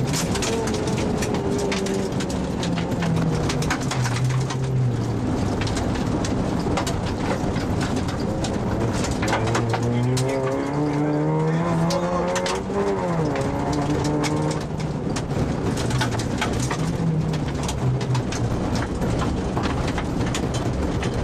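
Rally car's engine heard from inside the cabin at speed on a gravel stage, its pitch stepping up and down with gear changes, with a long rise in revs about halfway through that then falls sharply. Loose gravel clatters against the car's underside in many sharp ticks.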